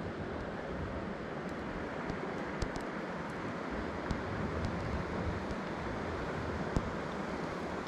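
Steady rushing wind noise buffeting the microphone, with a few faint, scattered ticks.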